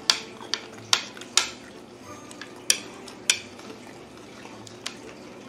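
Chopsticks clicking and tapping against a plate while picking up noodles: about seven sharp, irregular clicks, several in the first second and a half and a few more spread through the rest.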